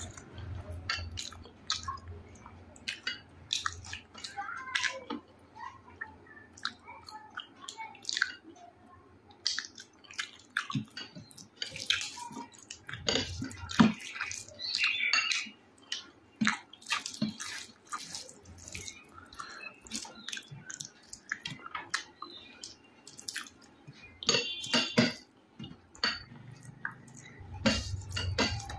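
Close-up eating sounds of rice and spicy chicken curry: wet squelching, smacking and chewing in irregular short clicks, the loudest about halfway through.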